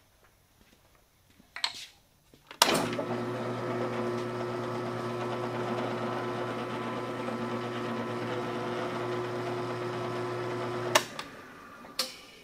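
Floor drill press switched on with a sharp click, its motor running steadily with a hum for about eight seconds while boring into a round wooden bandsaw insert, then switched off with a click; a couple of knocks before and after.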